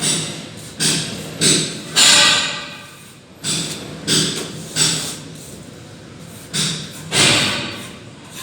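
A plastering trowel working mortar onto a wall: about ten sharp scraping strokes at uneven spacing of roughly one a second, each fading quickly, with a pause of about a second in the middle.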